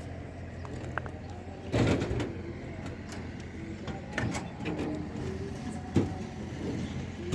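Construction-site noise: a steady low machine hum with several knocks and clatters, the loudest about two seconds in, and faint distant voices.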